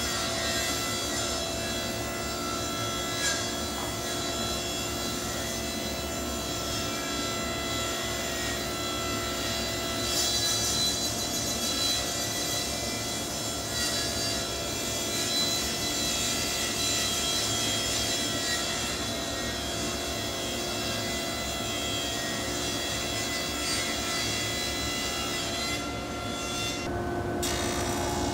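Table saw ripping maple boards into strips, with a power feeder pushing the stock through the blade. The cut runs steadily, the motor's whine under the noise of the blade in the wood.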